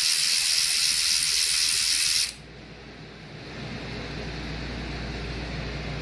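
Pneumatic air ratchet running with a loud hiss of exhaust air, stopping abruptly about two seconds in. A fainter steady low hum carries on after it.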